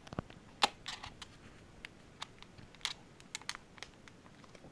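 Plastic deli cups being handled: about ten light clicks and taps of thin plastic, scattered and irregular, the sharpest about half a second in.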